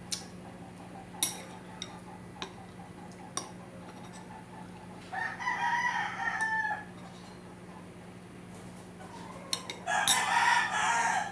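A rooster crowing twice, each crow about a second and a half long, the first about five seconds in and the second near the end. A few light clicks come earlier.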